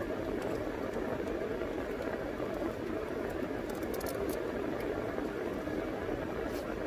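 Steady low noise of a car idling, heard from inside the cabin, with a few faint clicks about four seconds in.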